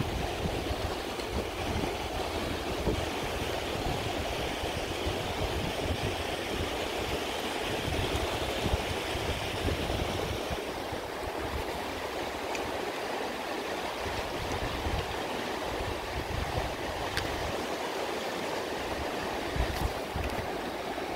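Steady rush of a rocky mountain river flowing over stones below, with a low unsteady rumble of wind on the microphone that eases off about halfway through.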